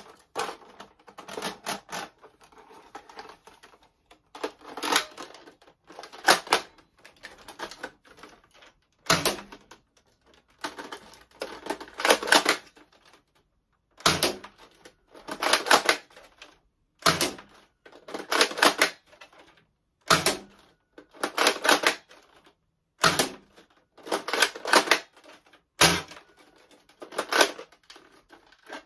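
Toy foam-dart blaster being worked over and over: clusters of plastic clicks and clacks from the priming action, broken by single sharper pops about every three seconds from about a third of the way in.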